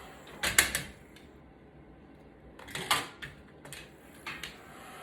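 Short clusters of sharp clicks and clattering knocks from small hard tools or parts being handled on a repair bench. They come about half a second in, around three seconds in, and again near the end.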